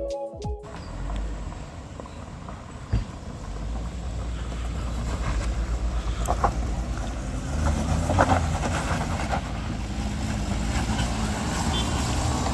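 A vehicle driving on a road, its engine and road noise making a steady low rumble, with a few short knocks.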